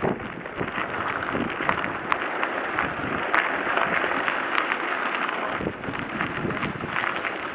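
Mountain bike rolling fast over a loose gravel road: a steady crunching crackle of tyres on stones, full of small clicks and rattles, with wind buffeting the microphone.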